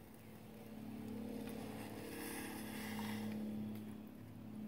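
Steady motor-engine drone, swelling in about half a second in and holding. A faint sizzle comes from Spam and soy sauce frying in a metal canteen cup.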